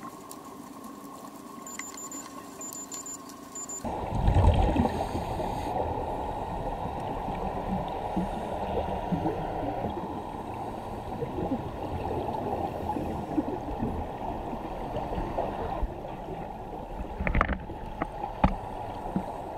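Muffled underwater water noise, a dense rushing and gurgling heard through a submerged camera, setting in loudly about four seconds in after a quieter hiss.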